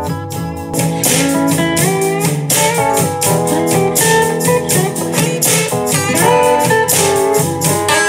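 Blues guitar track played back at 80% volume through a small Bluetooth speaker, first a Bose SoundLink Micro and then a JBL Clip 5, the music getting louder and brighter about a second in.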